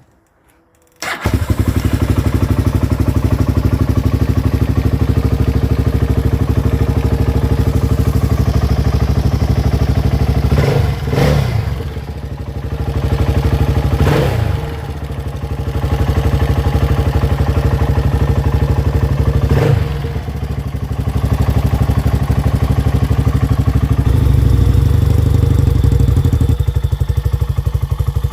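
Dinli DL901 ATV's 450 cc engine catching about a second in, then running steadily with a few brief dips and swells in revs and a louder stretch near the end.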